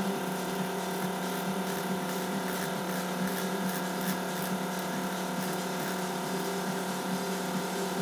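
Small DC motor running steadily at constant speed: an even hum with a whine above it, and light irregular ticks between about two and five seconds in.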